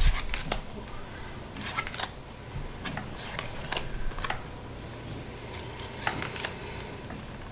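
Tarot cards being slid and flicked past one another in the hands, giving short crisp card-on-card snaps in small clusters, with a pause of a couple of seconds before the last cluster.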